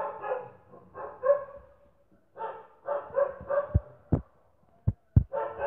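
A dog barking in short repeated bouts, with a few sharp knocks between the bouts about four and five seconds in.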